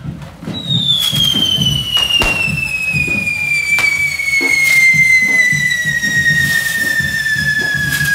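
Correfoc fireworks: a whistling spark-spraying firework (carretilla) shrieks in one long whistle that slides slowly down in pitch as it burns. Several sharp firecracker bangs go off over it, with a steady low beat beneath.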